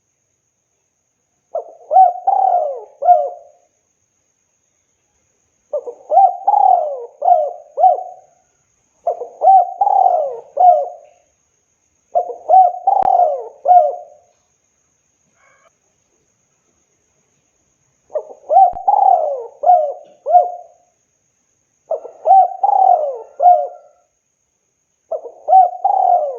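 Spotted dove (tekukur) cooing: seven phrases of three or four falling coo notes each, every phrase lasting about two seconds, with short pauses between them and one longer pause about halfway through.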